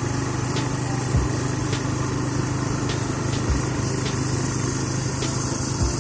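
Motor scooter's small engine running steadily under way, with a few dull low thumps.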